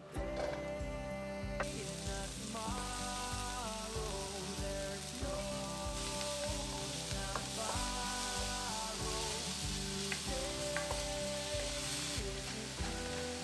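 Diced onion and a pat of butter sizzling in a hot stainless steel pan, stirred with a wooden spatula; the sizzle starts about two seconds in. Background music plays throughout.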